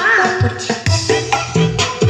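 Dance music with a steady kick-drum beat, about two a second, and percussion, played loud through large speaker cabinets driven by a TBM power amplifier board on test, tuned for a flat sound character.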